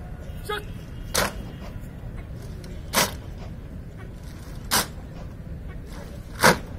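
A rifle-armed drill contingent striking drill movements in unison, heard as four sharp cracks about 1.8 seconds apart over a low steady background rumble.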